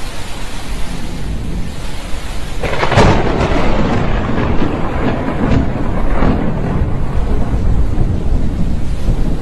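Thunder during a lightning storm: a sudden sharp crack about three seconds in, followed by several more cracks and a long rolling rumble. Under it runs the steady hiss of rain.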